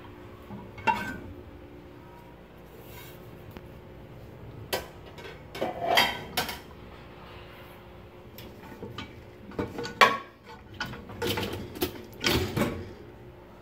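Dishes and cutlery clinking and clattering in a dishwasher's racks as it is being cleared, in scattered knocks and clinks, the loudest about ten seconds in.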